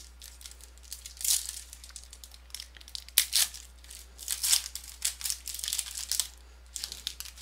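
Shiny foil wrapper of a Panini trading card pack being torn open and crinkled by hand, in irregular crackling rustles.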